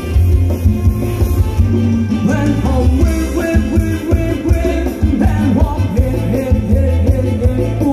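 Live band playing loud Thai ramwong dance music through a PA, with a heavy, steady bass beat and a melody over it.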